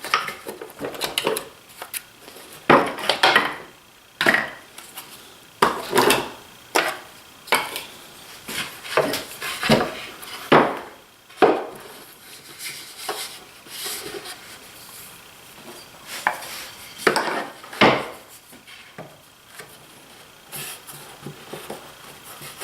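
Irregular wooden knocks, clunks and short scrapes as an angle grinder's side handle is pressed and twisted into a drilled hole in a poplar block, its threaded stud cutting its own thread in the wood like a tap.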